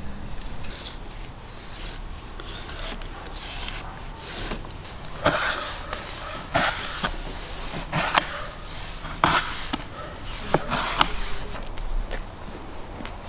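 Knife cutting sturgeon on a wooden cutting board: scraping strokes and a series of sharp knocks of the blade against the board, coming irregularly about once a second in the second half.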